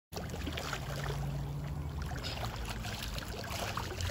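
Swimming-pool water sloshing and splashing close to the microphone, with irregular small splashes and lapping; it cuts in abruptly just after the start.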